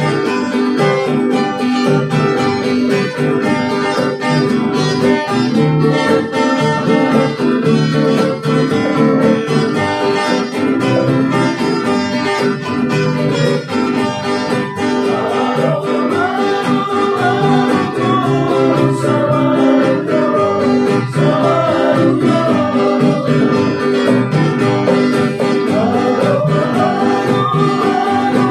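A small live acoustic string band playing: strummed acoustic guitars and ukulele with a tifa hand drum, and voices come in singing about halfway through.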